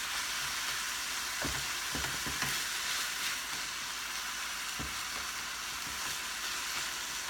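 Ground beef sizzling steadily as it browns in a frying pan, with a few light knocks as it is stirred.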